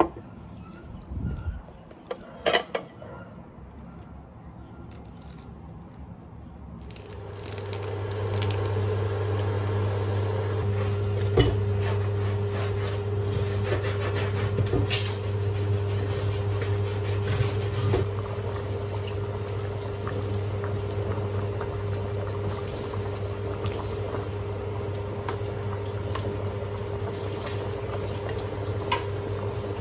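A pot of water at a rolling boil, with a steady hum, as dry spaghetti is lowered in and stirred with tongs, giving a few light knocks against the pot. Before that, about two and a half seconds in, a single sharp click.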